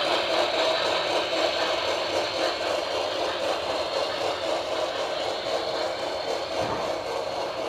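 Model train passenger cars rolling past on the layout track: a steady metallic whir of small wheels on rail, slowly fading.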